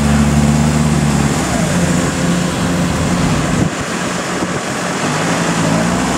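Diesel engine of a Kubota rice combine harvester running hard under load as it drags a machine bogged in mud. The engine note shifts about a second in, and its deepest part drops away a little past halfway, then comes back near the end.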